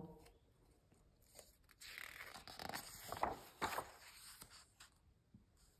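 A paper page of a picture book being turned by hand: a soft rustle and swish with a few light flicks, starting about a second and a half in and dying away a second before the end.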